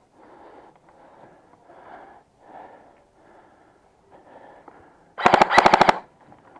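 Airsoft gun firing a short, rapid full-auto burst of about a dozen shots near the end, after several seconds of faint, regular puffing sounds.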